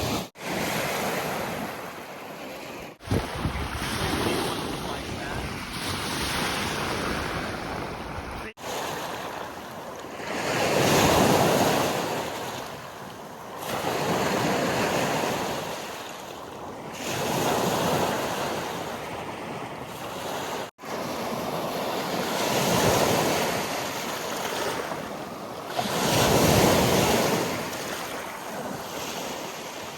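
Lake Michigan waves washing onto the beach, swelling and falling back every few seconds, with wind buffeting the microphone.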